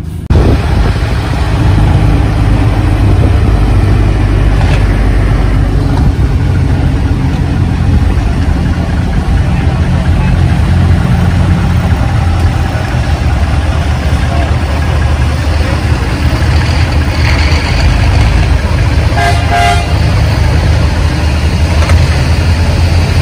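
Engines of vintage long-hood trucks running low and steady as the trucks drive slowly past. About three-quarters of the way through, a horn gives a quick series of short toots.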